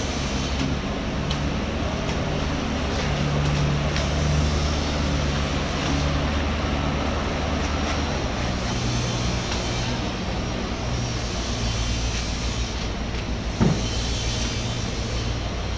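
A steady low engine-like hum over an even hiss, with one sharp knock a couple of seconds before the end.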